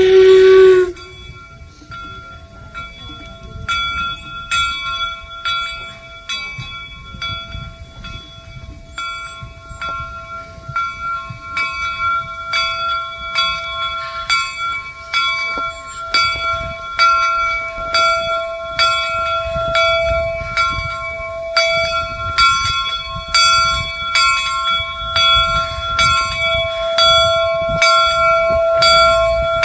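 Steam locomotive bell on the replica No. 60 Jupiter 4-4-0 ringing in regular strokes as the engine rolls in, growing louder, over the low rumble of the approaching locomotive. The last of a steam whistle cuts off about a second in.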